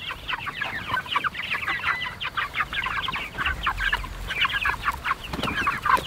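A flock of young Red Ranger meat chickens peeping and clucking, many short high chirps overlapping without a break, as the birds crowd after a bucket of feed.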